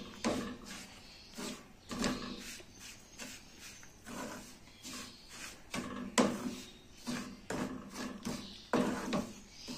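Spatula scraping and pushing dry, crumbly semolina with grated coconut and nuts around a metal pan while it roasts in ghee, in irregular strokes about one or two a second, the loudest about six seconds in.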